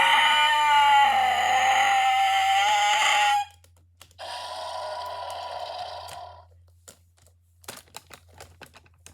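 A child's voice giving a long, loud, high-pitched scream-like dinosaur roar, followed by a shorter, quieter second roar. Then plastic dinosaur toys clack and knock together a few times near the end.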